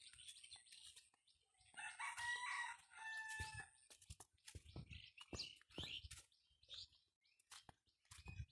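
A rooster crows once, a call of about two seconds starting a couple of seconds in, over the crackle of footsteps on dry leaves. A few short bird chirps follow later.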